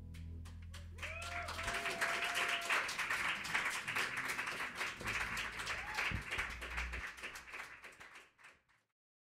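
A jazz band's last chord rings out in the low register and fades as the audience breaks into applause, with a whoop early on. The clapping is dense for several seconds, then thins out and stops shortly before the end.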